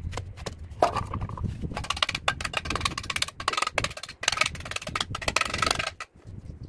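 A steel trowel tapping and scraping against hollow clay bricks and mortar while a brick is laid and bedded: a quick run of sharp taps, with a short ringing clink about a second in.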